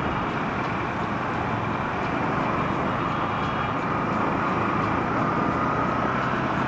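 Steady road and traffic noise while riding a motorcycle through city streets, with a faint whine that rises slightly in the second half.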